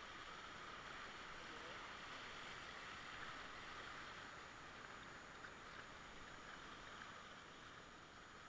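Rushing whitewater of a river rapid: a faint, steady hiss of moving water, easing slightly near the end.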